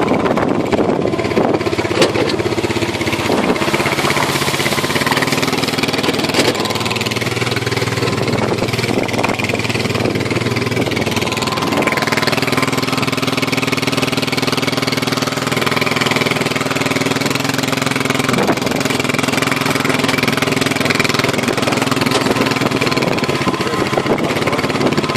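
Honda Fourtrax 4x2 ATV engine running steadily, its pitch stepping up or down a couple of times.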